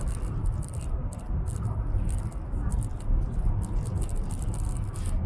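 Cabin noise of a high-speed train running at speed: a steady low rumble with irregular light ticks and rattles over it.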